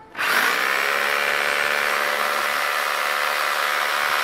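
Bosch GBH 2-26 DRE 800 W rotary hammer drill switched on and running free on a 2000 W power inverter. The motor spins up within a fraction of a second and then holds a steady whine at full speed, with no hammering into material.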